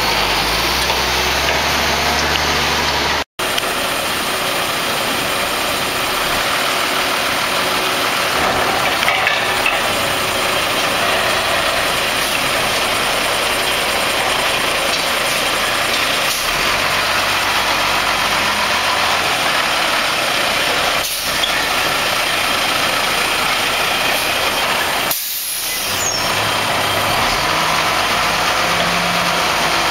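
1992 Mack MR garbage truck's diesel engine running steadily as the truck drives and manoeuvres, with a brief cut-out about three seconds in.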